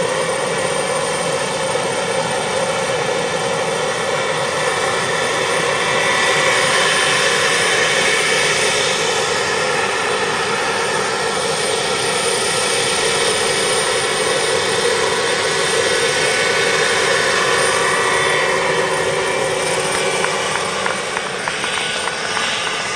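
Turbine-powered radio-controlled Mi-24 Hind model helicopter running: a steady high turbine whine over a continuous rush of noise, getting quieter near the end.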